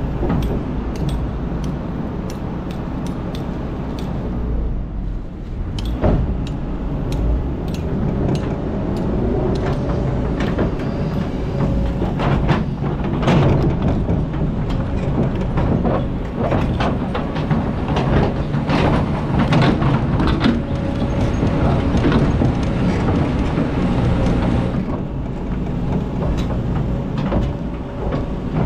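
Kobelco excavator's diesel engine running under load while the bucket digs into rocky sand, with repeated knocks and clatters of stone against the steel bucket through much of the middle.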